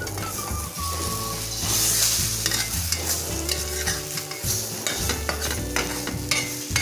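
Egg paratha frying and sizzling in a hot kadai, with a spatula scraping and turning it over. The sizzle swells about two seconds in.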